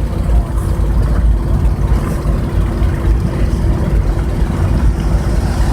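Steady low rumble of a moving car heard from inside the cabin, with road and engine noise and a faint steady hum.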